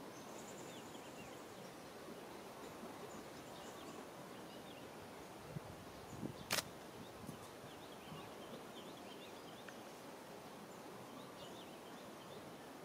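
Quiet outdoor ambience in a tree canopy: a steady background hiss with scattered faint, short high chirps. A single sharp click about halfway through, with a couple of smaller knocks just before it.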